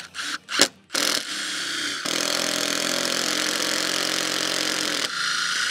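Cordless drill boring a 5/8-inch Irwin spade bit with a self-feeding screw tip into a pressure-treated pine board. A few clicks come first, then the drill starts about a second in and runs steadily as the screw tip pulls the bit down through the wood, changing in tone near the end.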